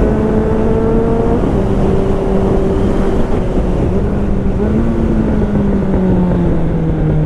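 Suzuki Bandit 600's inline-four engine running under way through its exhaust. The note holds fairly steady and then sinks lower near the end as the bike eases off, over a heavy low rumble.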